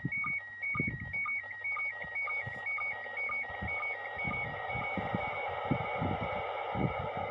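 Slow-scan television (SSTV) signal in PD120 mode: a high tone flicking between two pitches, with a short lower sync blip about twice a second. From about three and a half seconds in, the tone weakens under rising hiss. Irregular low thumps run beneath it.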